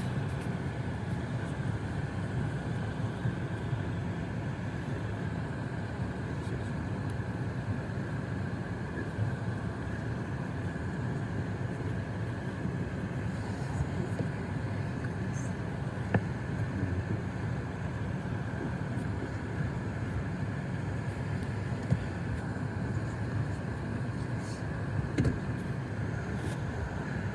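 A car running and driving slowly, heard from inside the cabin as a steady low rumble, with a couple of brief clicks.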